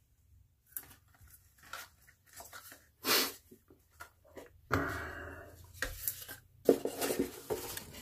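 Rummaging through things while searching for an item: scattered knocks and rustling. There is a sharper sound about three seconds in, a longer rustle that fades just after five seconds, and a cluster of knocks near seven seconds.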